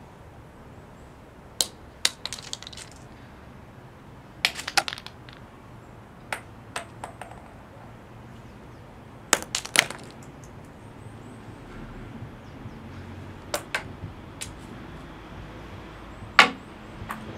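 Acorns dropping onto stone paving: sharp, irregularly spaced clicks, about eight or nine drops, several with quick little bounces after the first hit. The loudest hit comes near the end.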